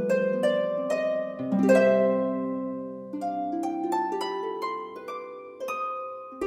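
Background music: gently plucked string notes, about two a second, over sustained low chords.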